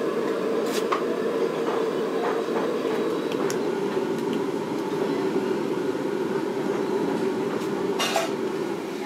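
Steady mechanical hum from machinery running, with a few sharp clicks and knocks on top, the loudest one near the end.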